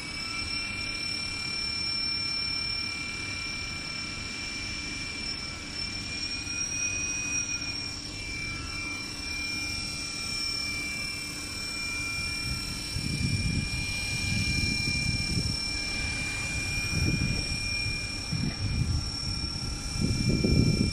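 JCZK 300C radio-controlled helicopter's motors and rotors whining steadily in a high pitch as it lifts off and flies, the pitch rising slightly about six seconds in. Irregular low rumbling gusts on the microphone come in during the second half and are loudest near the end.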